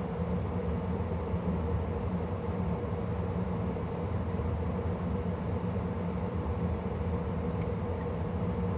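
2013 Carrier Sentry gas furnace running steadily: an even rush of air with a low hum, and one short faint click near the end.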